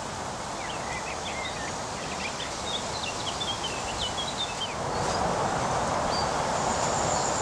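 Outdoor ambience: a steady rushing background with a small bird twittering in quick short chirps for the first few seconds. The background noise steps up and gets louder about five seconds in.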